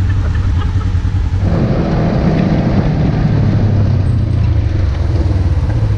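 Polaris RZR side-by-side engine running steadily under way on the trail, with a constant low hum. About a second and a half in, the sound grows louder and rougher.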